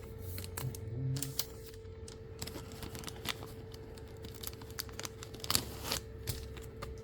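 Trading cards being handled and slipped into plastic card sleeves: scattered soft rustles, crinkles and light ticks, over a faint steady hum.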